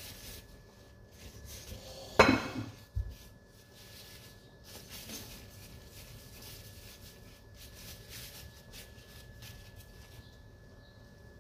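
A single sharp knock against a stainless steel mixing bowl about two seconds in, ringing briefly, with a softer thud just after. Otherwise faint rustling of plastic food-prep gloves as dough is rolled into a ball between the palms.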